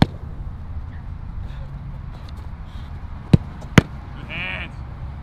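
Sharp thuds of a football being struck and saved in a goalkeeper shot-stopping drill: one at the start, then two about half a second apart a little past three seconds in. A brief shout comes just after them, over a steady low rumble.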